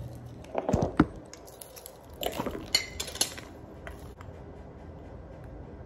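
Glass jar candle knocking and clinking as it is picked up and handled: a few sharp knocks about a second in, then a cluster of clinks and clicks between about two and three seconds in.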